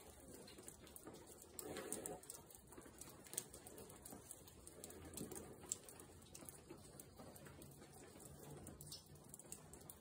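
Near silence: faint outdoor background with a few soft ticks and rustles.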